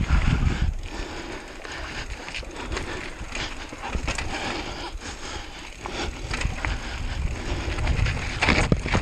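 Wind buffeting the microphone as a deep rumble, with irregular rattling knocks and clicks throughout.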